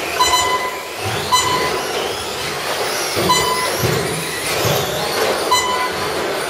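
A pack of RC short-course trucks racing on a carpet track, their motors and drivetrains whining up and down in pitch as they accelerate and brake. Short electronic beeps sound every second or two through it.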